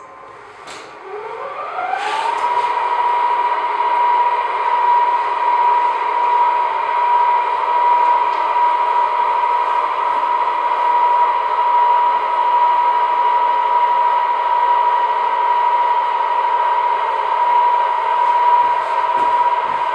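Telescope mount's drive motors slewing: a whine rises in pitch as the motors speed up, then holds a steady high whine at full slew speed.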